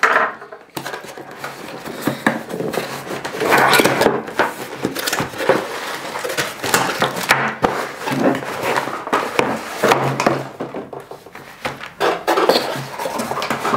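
Small cardboard boxes and plastic-bagged parts being handled on a table: rustling, scraping and many light knocks as a box lid is lifted off and the contents are pulled out.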